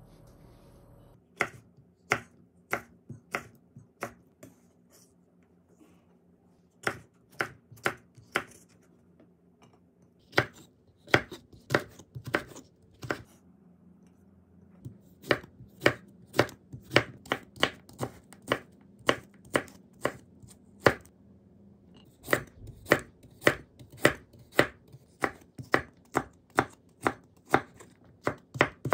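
Chef's knife slicing bell peppers into thin strips on a wooden cutting board: a series of sharp knocks of the blade hitting the board, about two to three a second, with a couple of short breaks.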